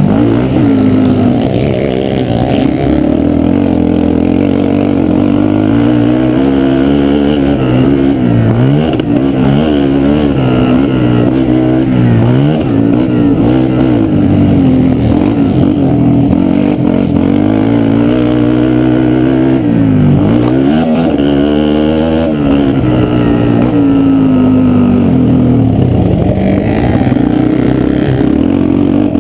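Yamaha sport quad's single-cylinder four-stroke engine under hard throttle on a motocross track. Its pitch climbs and falls continually, and several times it drops sharply and climbs back as the throttle is chopped and reopened.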